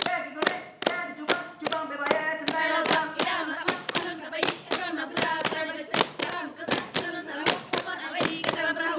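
Saman dancers clapping and striking their bodies with their hands in a quick, even rhythm, several strokes a second, while chanting together in unison.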